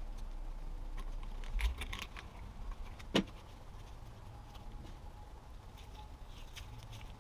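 Handling noises of a front CV axle being worked by hand: the rubber boot sliding and flexing on the shaft, with scattered light clicks and one sharp click about three seconds in.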